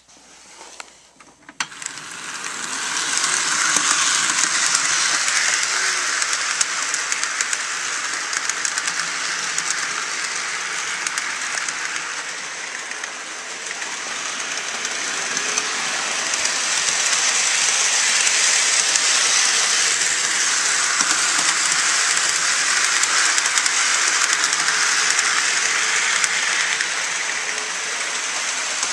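Bachmann Standard Line HO-scale GP38-2 model locomotive running on track: a steady rolling hiss of wheels and small motor with fine rail clicks. It starts about two seconds in and slowly grows louder and softer.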